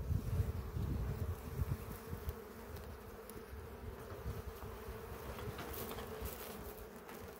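Honeybees buzzing in a steady hum at a hive, with low rumbling noise in the first two seconds.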